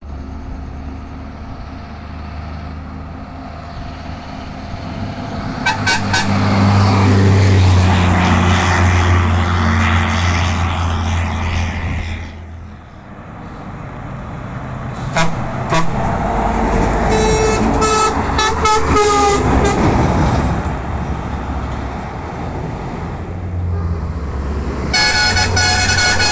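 Heavy trucks passing close by with a deep diesel rumble, their air horns blowing. There are short toots about a quarter of the way in and again just past halfway, then a longer run of multi-note horn blasts, and a horn sounds again near the end.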